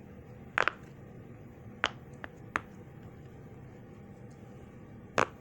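Bubbles of a silicone Pop-It fidget toy being pressed through on its loud side, each giving a sharp pop. There are four loud pops at uneven intervals, about a second or more apart, and one fainter pop among them.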